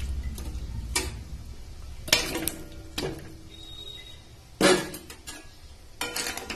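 Metal utensils knocking and clinking against a metal kadhai as fried rohu fish pieces are put into the boiling curry. There are about six separate strikes, the loudest about two-thirds of the way through, over a low steady hum.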